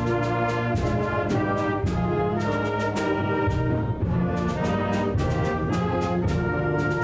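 High school concert band playing a loud, full brass-led passage of sustained chords, with sharp percussion strikes throughout.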